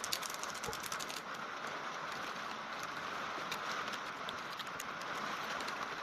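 Water with citric acid powder being stirred with a wooden stick in a plastic tub to dissolve it: faint swishing with light clicks of the stick against the plastic, over a steady hiss.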